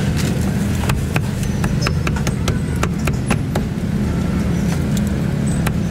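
Busy street-market ambience: a steady low rumble of traffic with frequent sharp clicks and clatter.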